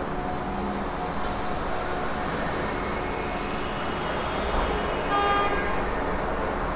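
City street ambience: a steady wash of traffic noise, with a short car-horn toot about five seconds in.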